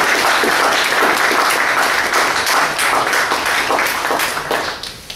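Audience applauding: dense, steady clapping from a large crowd, easing off slightly near the end.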